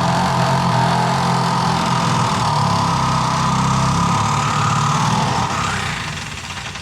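Electric drill running steadily as it bores a hole through metal, then slowing and winding down over the last second.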